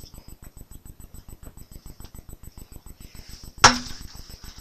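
One sharp knock about two-thirds of the way through, with a brief low ring after it. Under it runs a fast, even ticking, about ten beats a second.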